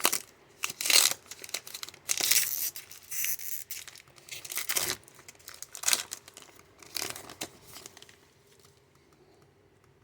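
Foil trading-card pack wrapper being torn and crinkled open in a series of short rips and rustles that stop about eight seconds in.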